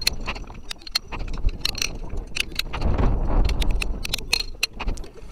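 Hand hammer striking a steel chisel against rock to cut around a fossil: a rapid, uneven run of sharp metallic clinks with a short ring.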